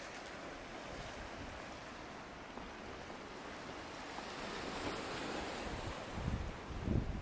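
Sea surf washing in, a steady rush that swells over the first five seconds or so, with wind buffeting the microphone near the end.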